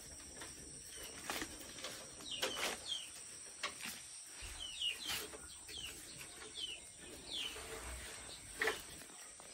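Faint bird chirps, a few short falling notes scattered through, over light clicks and taps from bamboo slats being handled and bound with string for a fish trap.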